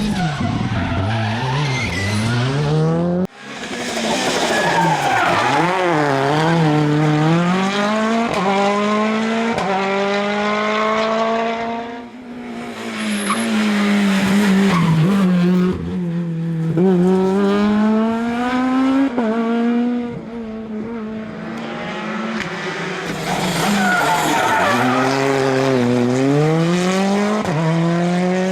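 Rally cars at full attack, engines revving hard, pitch climbing through each gear and dropping on downshifts, with tyre squeal in the corners. Several cars follow one another, with abrupt changes between them.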